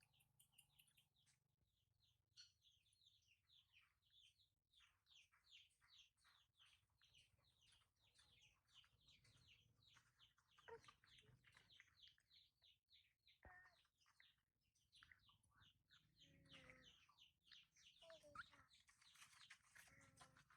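Faint, rapid high-pitched chirping calls, a few short falling notes a second, running on with little pause.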